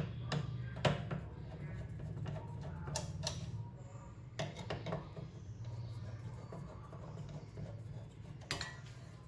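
Light clicks and clinks of small hard parts of a CPU cooler being handled and fitted, about eight scattered through the stretch, over a steady low hum.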